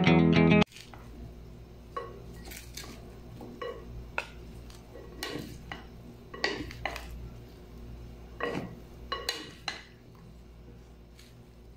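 Guitar music cuts off about half a second in. Then wooden salad servers toss salad in a glass bowl, giving irregular knocks and clinks of wood against glass, some with a short ring.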